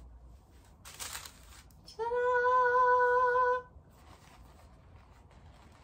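A woman hums one steady, level note for about a second and a half, starting about two seconds in. Just before it comes a brief rustle as the shoe is drawn out of its cloth dust bag.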